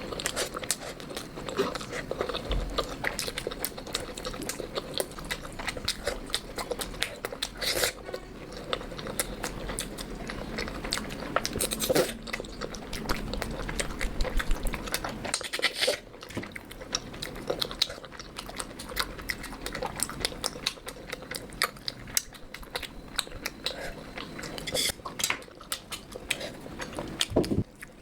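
Close-miked eating sounds: a person chewing and biting food, with many wet mouth clicks. The sound changes abruptly a few times, about 16 seconds in most plainly.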